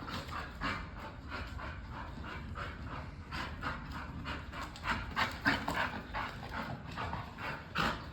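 A dog panting rapidly, about three quick breaths a second, strongest around five to six seconds in.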